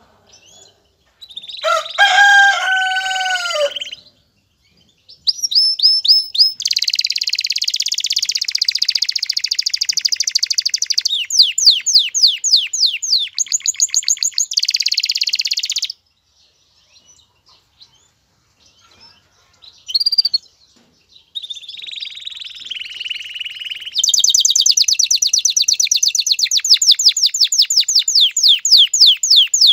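Male domestic canary singing in phrases of rapid high trills and rolls, broken by short pauses, with a long fast trill near the end. About two seconds in there is a lower, harsher call.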